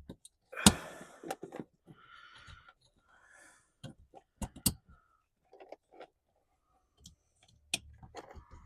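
Plastic wiring-harness connectors being pushed together and snapping into place under a car dashboard: a series of sharp clicks at irregular intervals, with soft rustling handling noise between them.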